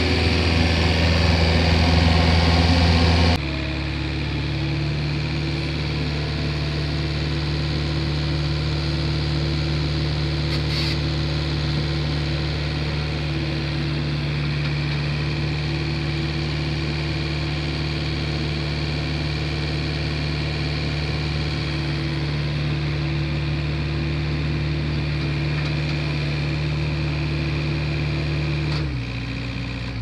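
Skid-steer loader's engine running steadily. About three seconds in, the note changes abruptly to a slightly lower, quieter one, and near the end the engine winds down and shuts off.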